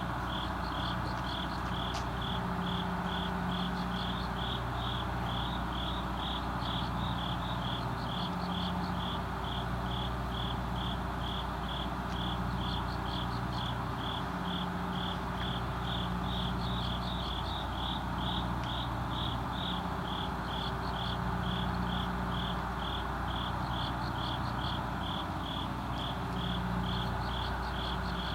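Crickets chirping at night in a steady rhythm, about two to three short high chirps a second, over a low steady hum and a soft wash of background noise.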